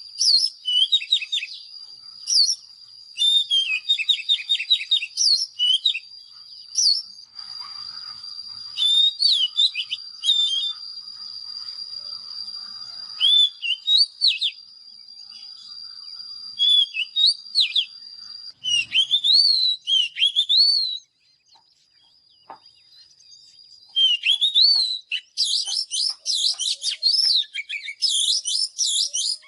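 Oriental magpie-robin singing: varied whistled phrases with quick up-and-down glides and trills, pausing briefly about three quarters of the way in, then coming back denser and louder near the end. A steady thin high tone runs under the first half.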